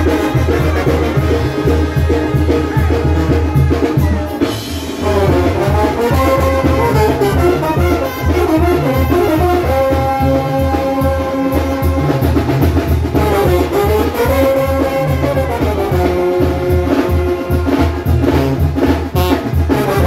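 Sinaloan banda brass section playing live, led by trombones. They hold notes and twice sweep down and back up in pitch, over a steady low bass beat.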